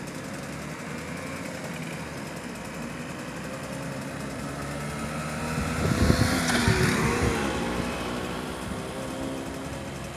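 Vintage two-stroke moped engine riding past close by: it grows louder to a peak about six seconds in, then drops in pitch and fades as it goes away. Other mopeds run steadily in the background throughout.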